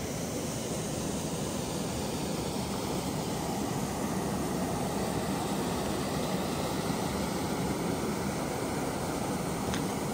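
Steady rush of a waterfall pouring into a river pool, growing a little louder about four seconds in.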